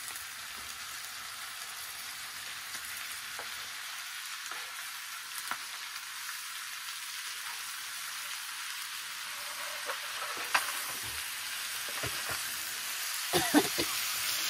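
Pork and aged kimchi sizzling in a frying pan on a portable gas burner while a spatula stirs them; the sizzle grows a little louder, and there are a few sharp knocks of the spatula against the pan, mostly near the end.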